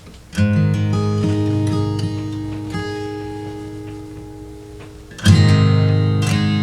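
Martin D-18V mahogany-and-spruce dreadnought acoustic guitar: a chord strummed about half a second in and left to ring, slowly fading, then a second chord strummed hard about five seconds in.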